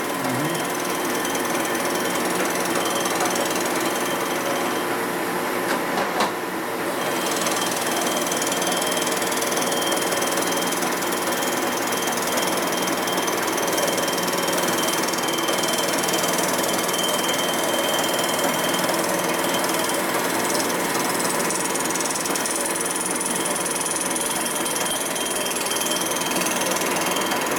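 A machine tool runs steadily as it takes a light surfacing cut across the aluminium cylinder head of a 2005 Harley-Davidson Sportster XL1200, truing the warped head flat. A brief knock comes about six seconds in.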